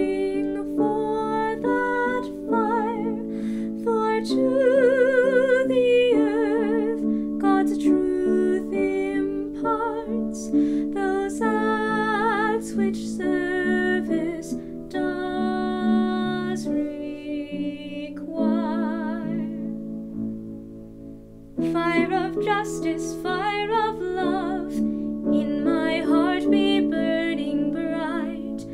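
Hymn music: a sung melody with vibrato over gentle plucked-string accompaniment. It fades briefly about twenty seconds in, then starts up again.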